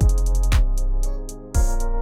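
Hip-hop style music with heavy bass kicks, a snare or clap about half a second in, fast hi-hats and a sustained synth.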